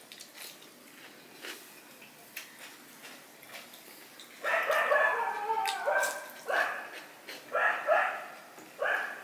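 Dogs barking: a burst of overlapping barks and yelps about halfway through, then single barks about once a second. Before the barking come faint clicks and smacks of eating by hand from a steel plate.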